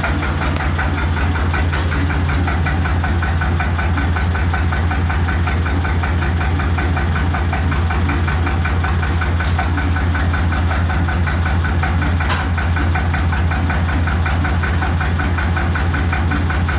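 Small tractor's engine idling steadily, with a fast, even knock.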